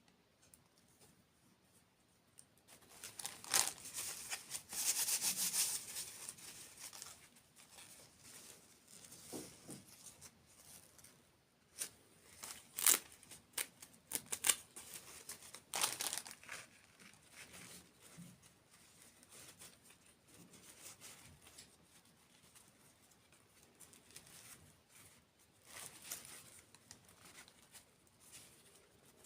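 Close-miked crinkling and crackling from desserts being handled and eaten, in irregular bursts with quieter gaps between.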